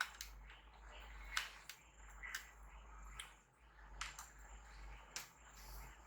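About half a dozen faint, sharp clicks and taps, irregularly spaced, of small laptop parts and tools being handled during disassembly.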